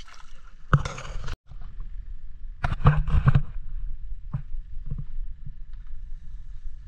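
Low steady rumble of a small fishing boat at sea, with a few louder swishing, splashing bursts and light knocks as a nylon gill net is paid out over the gunwale into the water.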